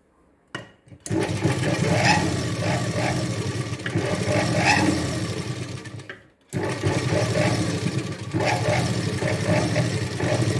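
Black straight-stitch sewing machine running at speed, top-stitching a blouse seam. A short burst comes first, then a long run from about a second in, a brief stop just past halfway, and a second long run.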